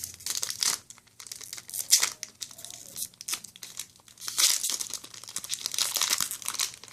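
A foil Yu-Gi-Oh! booster pack being torn open and its wrapper crinkled, in irregular bursts of tearing and crackling with short pauses between.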